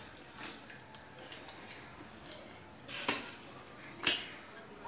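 Crisp fried pani puri shells cracking open, a few faint crackles and then two loud sharp cracks about a second apart near the end.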